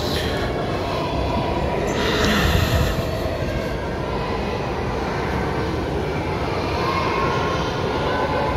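Steady low rumbling noise, with a brief louder swell about two seconds in.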